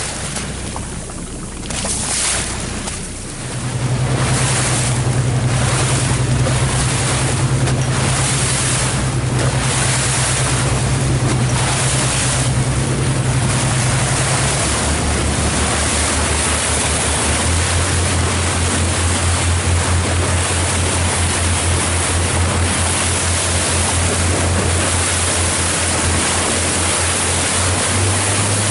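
Boat's motor running under way with a steady low hum that comes in a few seconds in and drops in pitch about halfway through, over wind on the microphone and water rushing and splashing along the hull.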